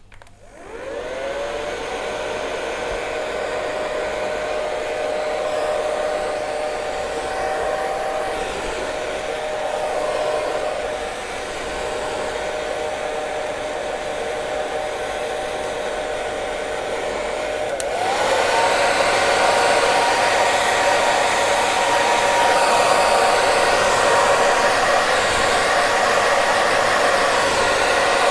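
Hair dryer switched on with a click, its motor whine rising quickly to a steady pitch over a constant rush of blown air. About two-thirds of the way through, it steps up to a higher, louder setting, and the whine climbs to a higher steady pitch.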